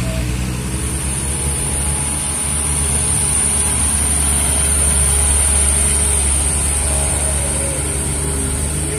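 Diesel engine of a heavily loaded Isuzu Elf light truck pulling past at low speed, growing louder as it comes closest around the middle. A steady high-pitched whine runs underneath.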